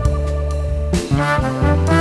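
Instrumental background music: sustained pitched notes over a bass line, moving to new notes about a second in.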